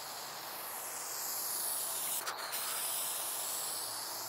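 Aerosol spray paint can hissing steadily as paint is sprayed across a car roof, with a brief break a little past two seconds in.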